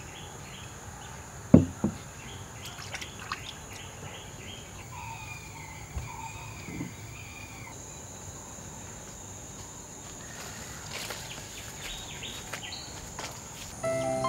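Outdoor rural ambience: a steady high-pitched insect drone with birds calling, first a run of quick repeated chirps, then a warbling call a few seconds in. Two sharp knocks about a second and a half in are the loudest sounds.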